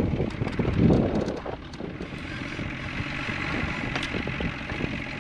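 Wind buffeting the microphone in heavy low gusts for the first second and a half, then settling into a steadier rushing noise.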